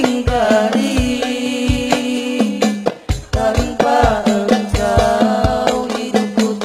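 Voices singing a slow Islamic nasyid in a gliding, melismatic line over a sustained drone, with a steady beat of hand drums. The music drops briefly about halfway through.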